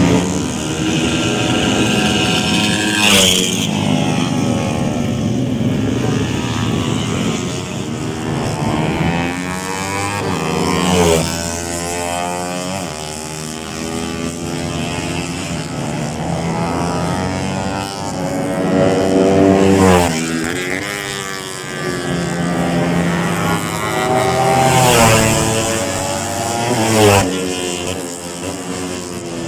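Racing motorcycles lapping the circuit, several passing one after another, their engines revving high and shifting through the gears. The pitch rises and falls as each goes by.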